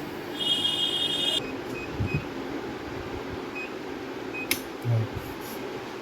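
Room tone: a steady low hum and hiss, with a brief high tone about half a second in that lasts about a second, then a click and a short low thump near the end.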